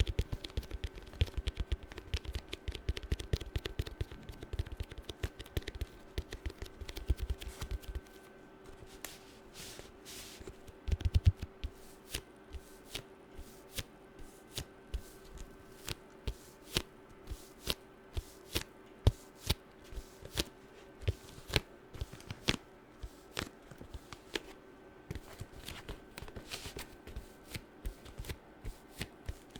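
Fingernails tapping quickly on hard objects: a dense flurry of clicks for the first several seconds, then slower, spaced taps with a brief scratching patch, over a faint steady hum.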